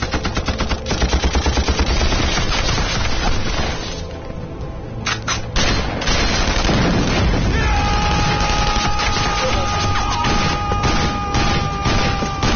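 Rapid machine-gun fire, the film's sound effects for a battle, with scattered rifle shots and booms. A held music note joins about eight seconds in.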